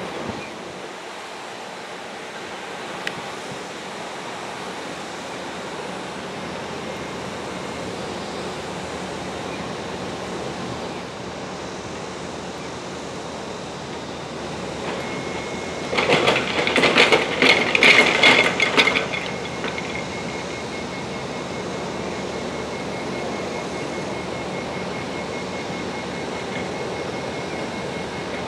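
A new MTR train being towed slowly through a rail depot: steady noise, with a loud rapid clatter for about three seconds some 16 s in and a faint steady high tone from then on.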